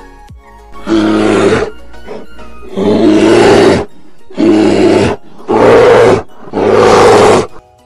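A large animal's growling roar, five loud rough calls each under a second long, separated by short gaps.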